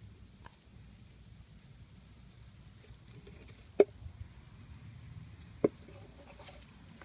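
Short, high-pitched chirps repeating on and off, with two sharp clicks a little under two seconds apart past the middle, the clicks being the loudest sounds.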